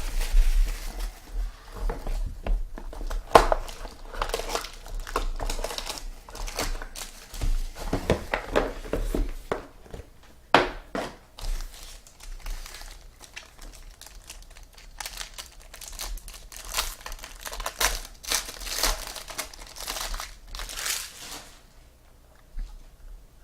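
Plastic wrapping crinkling and tearing as a sealed box or packs of football trading cards are opened by hand, in irregular rustling bursts that die away near the end.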